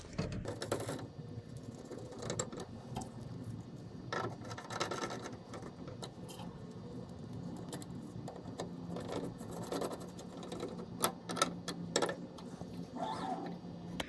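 Light clicks and taps of hand-tool work: a screwdriver fastening a small metal mounting plate onto a laser cutter's head, with scattered sharper clicks, a quick cluster of them near the end. A faint steady low hum runs underneath.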